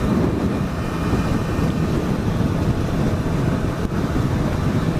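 Suzuki GSX-S1000's inline-four engine running at a steady cruise, mixed with heavy wind rush over the microphone at road speed.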